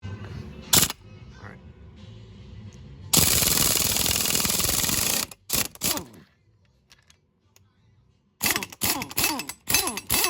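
Impact wrench hammering on nuts in one long burst of about two seconds, then in several short bursts near the end, its pitch falling as it spins down after each. A sharp click comes just under a second in.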